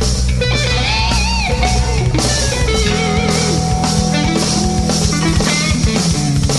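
Rock music: a lead guitar bends notes over a steady drum and bass groove.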